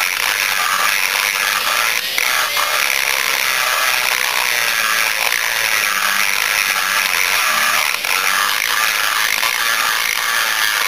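A high-speed rotary grinder runs with a single-cut carbide burr, cutting inside the exhaust port of a Yamaha Blaster two-stroke cylinder. It is a steady whine whose pitch dips and recovers over and over as the burr bites and is kept moving around the port.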